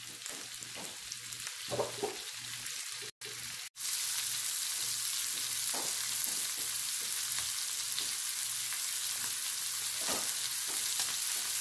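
Beef pot roast sizzling in hot oil in an electric skillet as it browns. The sizzle drops out briefly about three seconds in, then runs on steady and a little louder.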